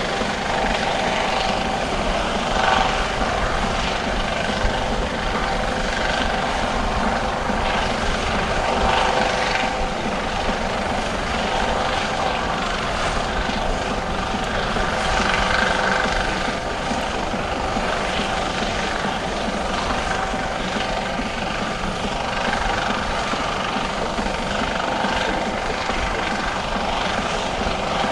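US Coast Guard MH-65D Dolphin helicopter hovering during a rescue hoist: the rotor and twin turbine engines run steadily, with a steady whine over the rotor noise.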